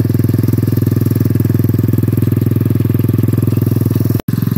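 A 125cc Chinese single-cylinder four-stroke quad engine idling steadily, just after being fitted. The sound breaks off in a brief gap near the end.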